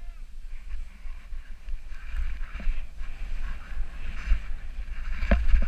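Snowboard sliding through soft snow with a steady hiss, and wind buffeting the action camera's microphone in a low rumble. A couple of sharp knocks come near the end.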